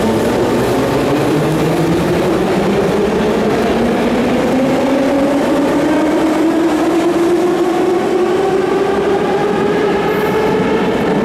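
Metro train pulling out of the station. Its traction motors whine in a pitch that climbs steadily as it speeds up, over the noise of the cars rolling along the track.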